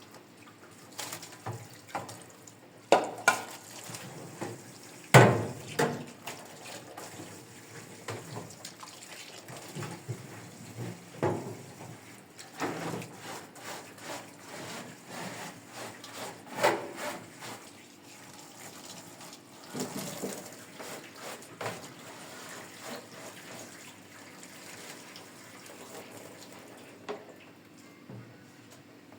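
Dishes being washed in a sink: water running with irregular knocks and clatters of dishes and pots, the loudest about five seconds in.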